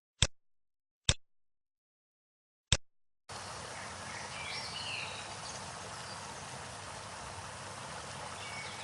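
Three sharp clicks over dead silence, then a recorded nature soundtrack cuts in abruptly: steady rushing water with a few short bird chirps.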